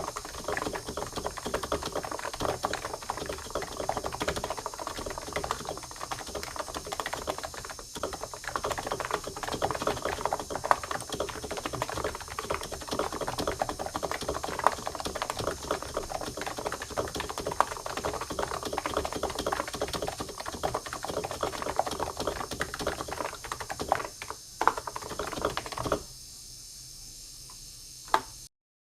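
Fast, continuous typing on a computer keyboard, clicking keystroke after keystroke; the typing stops about 26 seconds in, and one last key click comes just before the sound cuts off.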